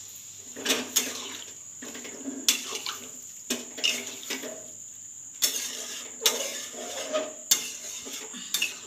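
Metal spatula scraping and clanking against a metal pan as a thick chickpea and potato curry is stirred and pressed down, about a dozen irregular knocks. The potatoes are being mashed into the gravy to thicken it.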